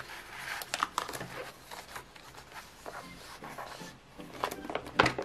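A sheet of paper and a clear plastic document sleeve in an A4 document holder rustling and crinkling as the sheet is slid into the sleeve, with scattered small taps and a sharper click near the end.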